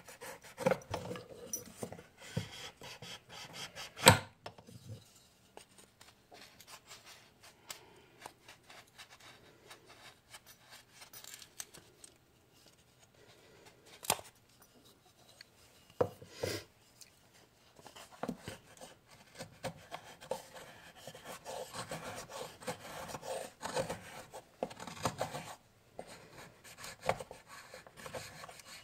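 Knife blade shaving and scraping wood, carving the curve into the back of a wooden spoon: a run of short scraping cuts, thicker near the end. There is one sharp knock about four seconds in and a couple of smaller knocks later on.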